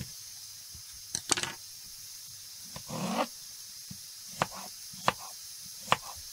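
Small knife tapping down through apple onto a thin plastic cutting mat while dicing: a few sharp knocks spaced roughly a second apart. Under them, the steady hiss of a pressure cooker letting off steam.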